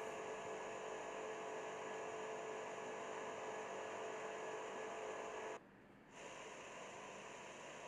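Steady background hiss with a faint hum, a recording's noise floor with no other sound. It drops out briefly about five and a half seconds in, then resumes a little quieter.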